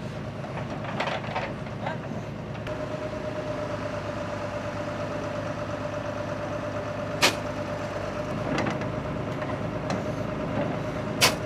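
Construction machinery engines running steadily, with a steady whine that comes in a few seconds in. Two sharp knocks stand out, one past halfway and one near the end.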